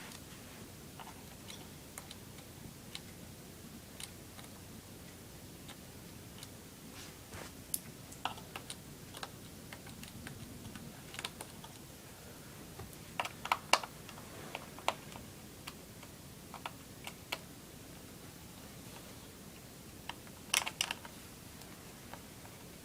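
Scattered small clicks and taps of a screwdriver and hands working the screws and plastic underside of an Acer Aspire 7741G laptop, with a few quick clusters of clicks partway through and near the end.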